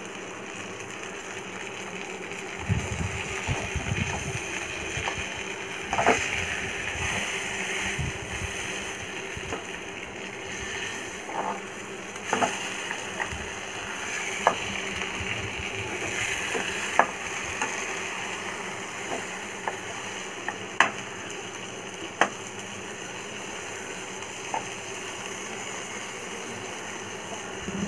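Marinated chicken pieces sizzling gently in butter in a frying pan, with metal tongs clicking and scraping against the pan several times as the pieces are turned over.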